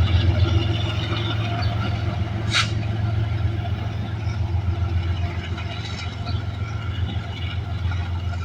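Freight train running with a steady low rumble, and a brief sharp hiss about two and a half seconds in.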